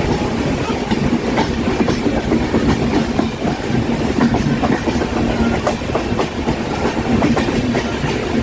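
Train running on the track: a steady heavy rumble with irregular clattering of wheels over the rails.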